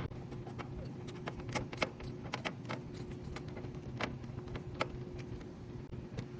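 Scattered light clicks and small metallic taps from hands handling hardware while mounting a capacitor and hard start kit in an air-conditioner's electrical panel, over a steady low hum.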